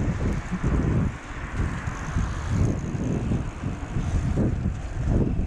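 Wind buffeting the microphone of a camera riding on a moving bicycle, an uneven low rumble, with the bicycle's tyres rolling on the asphalt.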